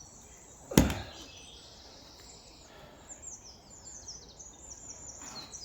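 A single sharp knock about a second in, from work on the axle, while small birds chirp repeatedly in the background.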